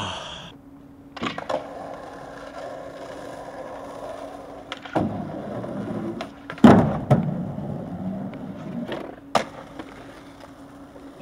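Skateboard wheels rolling, broken by several sharp clacks of the board popping and landing. The loudest impact comes a little past halfway, followed by more rolling.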